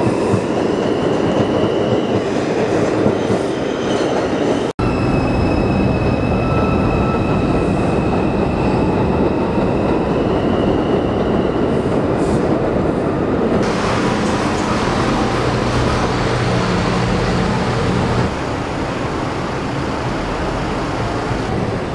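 Elevated subway train running on the steel structure, a loud steady rumble with high wheel squeal held over it for the first half. The sound drops out for an instant about five seconds in, and the level falls somewhat near the end.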